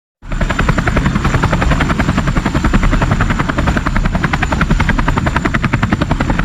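Helicopter rotor sound: a steady, fast chopping of the blades over a low engine rumble. It starts abruptly just after the start and keeps an even rhythm throughout.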